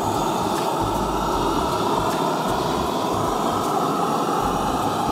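Handheld propane searing torch burning at full flame against ribeye steaks on a griddle: a loud, steady rushing hiss that holds unchanged.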